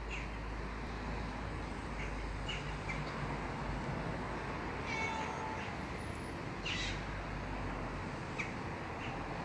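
Domestic cat meowing, one short call about five seconds in, over a steady background hiss.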